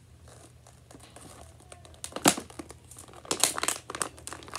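Toy packaging of clear plastic blister and cardboard crackling and crinkling as it is bent and pried apart by hand, with one loud crackle about two seconds in and a run of crackles near the end.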